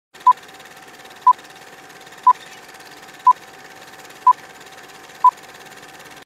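Film-leader countdown sound effect: six short, high beeps at one pitch, one second apart, over a steady hiss with a faint held tone.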